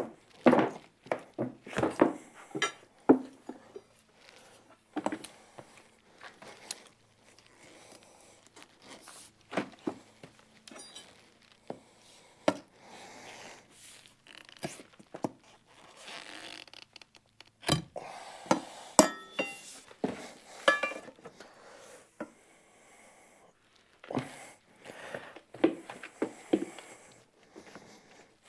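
Tools working a small lawn tractor tire's bead loose from its steel rim: irregular knocks, scrapes and rubbing, with a few ringing metal clinks.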